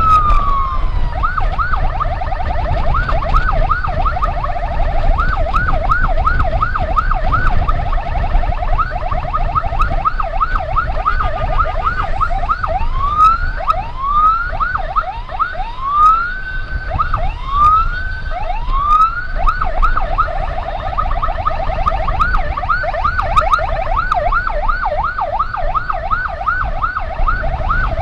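Emergency-vehicle siren in a fast yelp, sweeping up and down several times a second, broken by a few slower rising wails partway through, over a low rumble of wind and road noise.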